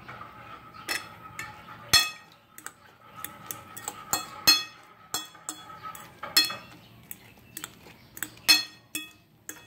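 A utensil clinking and tapping against a bowl at irregular intervals while ingredients are scooped in and stirred, each sharp clink ringing briefly; the loudest come about two seconds in, midway, and near the end.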